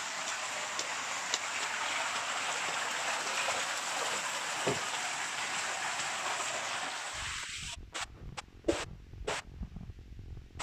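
Steady hiss of flowing water, like a small cascade, that fades out about seven seconds in; after it a low rumble and a few short knocks.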